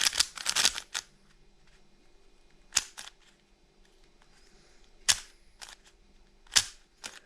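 Moyu Weilong WRM magnetic 3x3 speedcube being turned by hand: a quick flurry of plastic turning clicks in the first second, then three single sharp clicks a second or two apart. The cube has no lube in it yet and turns dry, loose and fast.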